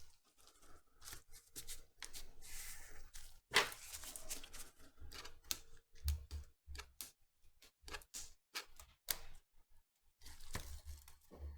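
Double-sided adhesive tape being handled and cut to size: scattered small clicks and short rustling scrapes at an irregular pace.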